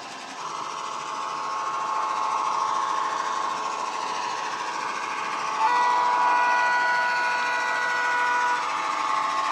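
Diesel engine sound from the DCC sound decoder in a model Irish 141 class locomotive, running under power through the model's small speaker; it is a recording of the EMD 567 engine type the class uses, and it swells over the first couple of seconds. Just past halfway, a chord horn sounds steadily for about three seconds.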